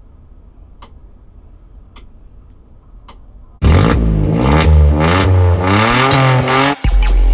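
Faint clock-like ticks about once a second, then, a little past halfway, a loud engine revving, its pitch climbing and falling, which cuts off abruptly near the end.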